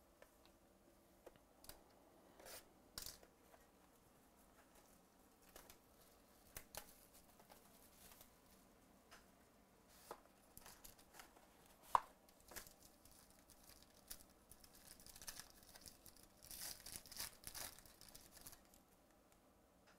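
Quiet handling of a trading-card box being opened: scattered clicks and scrapes of cardboard, with one sharp snap about twelve seconds in. Near the end comes a run of crinkling and tearing as the wrapper around the cards is ripped open.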